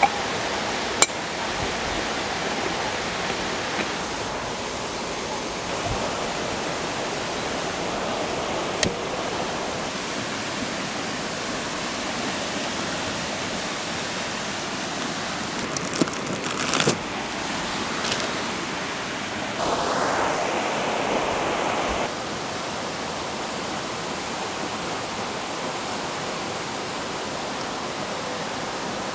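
Steady rushing of a river running past the campsite, with a few sharp clicks and knocks and a briefly louder patch of rushing about two-thirds of the way in.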